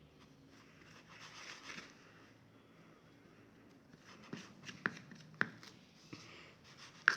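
Flour-and-water slime being stirred and handled by hand: a soft scraping rub about a second in, then several sharp clicks and taps from about four seconds on.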